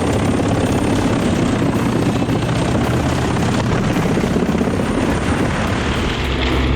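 Jensen 583 drum wood chipper running, a loud steady mechanical noise over a low engine hum; the hum settles to a different, lower tone near the end.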